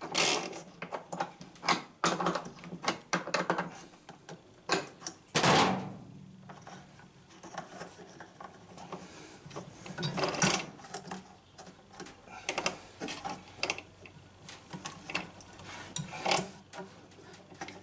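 Irregular clicks, knocks and rattles from the Electrolux LTE06 washing machine's freshly reassembled transmission and basket being turned and handled by hand, as a check for the spin noise caused by a dented pulley.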